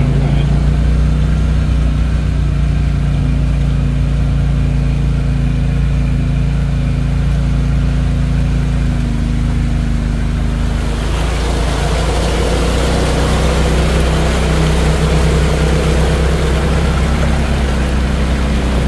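Side-by-side UTV engine running steadily as it drives along a trail, with a rushing hiss joining in about halfway through.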